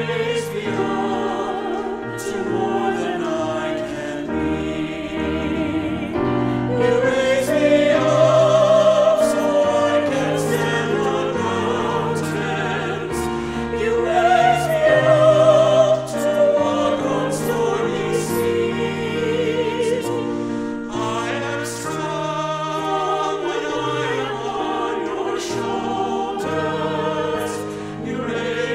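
Small mixed choir of men's and women's voices singing a hymn in harmony, with sustained notes and vibrato, swelling louder twice.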